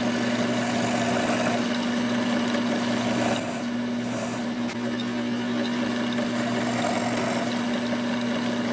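Drilling machine's motor running steadily with a hum, its stubby brad point bit boring test holes into small wood blocks; the cutting comes and goes as a rushing noise over the hum as each hole is drilled.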